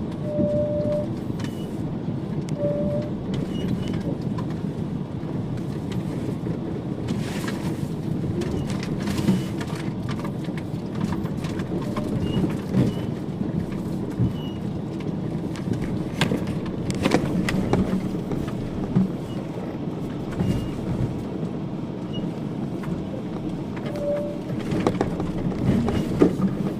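Fiat Fiorino van creeping down a rough, rocky mountain track: the engine runs low and steady while the body and suspension rattle, with frequent knocks from the tyres and underside striking stones.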